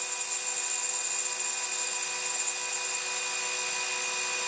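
Metal lathe running steadily, a whine of several constant tones over a hiss, as a parting tool is fed into the spinning workpiece to part it off.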